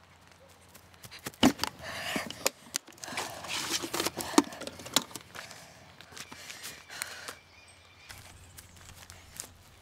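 A small wooden mailbox being opened, with a few sharp knocks and clicks. A bundle of paper envelopes rustles and shuffles as it is pulled out and handled. After about seven seconds only faint paper rustles remain.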